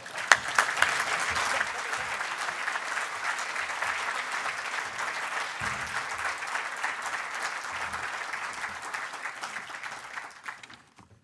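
Audience applauding, loudest in the first couple of seconds, then holding steady and dying away near the end.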